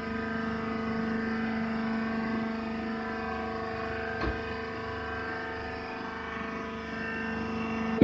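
Hydraulic wood shaving baler's power unit running steadily, an even machine hum with a held low tone. A single light knock about four seconds in.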